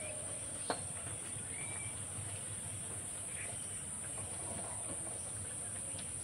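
A steady high-pitched insect drone, like crickets, over the soft sizzle of khaja pastries frying in oil in a steel kadai. There is one light tap of the metal spatula against the pan about a second in.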